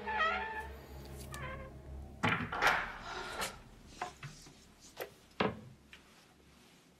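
Horror-series soundtrack: two short wavering, meow-like cries, then a run of about six sharp knocks and thumps, the loudest about two seconds in.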